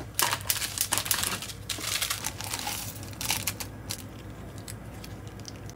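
Plastic packaging being handled and crinkled: a dense run of crackles that thins out about three and a half seconds in to a few scattered clicks, over a faint steady low hum.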